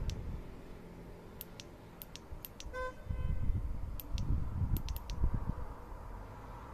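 Outdoor night ambience with a low, gusting rumble of wind on the microphone. A short, distant car horn toots once a little under halfway through, and a few faint, sharp clicks are scattered around it.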